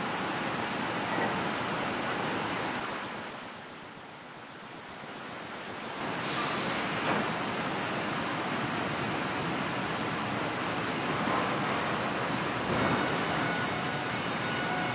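Cinewhoop FPV drone (BetaFPV 95X V3) in flight, its propellers and motors making a steady rushing whir. It drops away for a couple of seconds about three seconds in and comes back about six seconds in.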